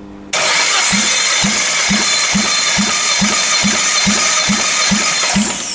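Citroën C4's 1.6-litre 16-valve engine cranked on its starter motor for a compression test, without firing: a steady starter whir with about eleven even compression beats, a little over two a second. Near the end the starter winds down with a falling whine. The even beats go with the gauge on cylinder one building to about 9 kg/cm².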